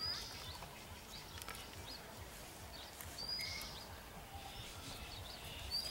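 A bird calling faintly outdoors: a short high note repeated three times, about every two and a half to three seconds, with a few fainter chirps over quiet background noise.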